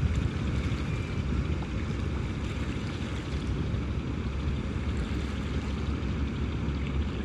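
Fishing boat's motor running steadily with a low rumble, with some wind on the microphone.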